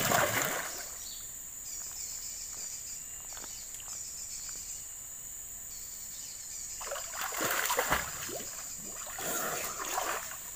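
River water splashing as a person wades and bathes in it, in a few bursts: one right at the start, then more around seven to eight seconds and again near ten seconds.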